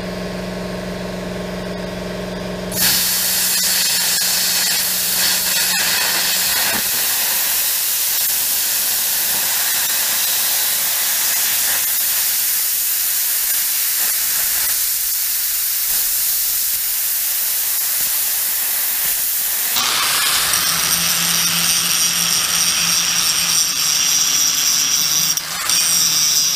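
Plasma cutter humming, then about three seconds in the arc fires and hisses steadily for some seventeen seconds as the torch cuts the welded paddle off a steel auger shaft. About twenty seconds in an angle grinder takes over, grinding the steel with a steady whine that dips briefly near the end.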